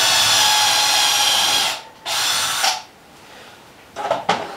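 Cordless drill driving a countersinking bit with a pilot drill bit into a wooden board, boring and countersinking a screw hole: one long run of under two seconds, a pause, then a second short burst.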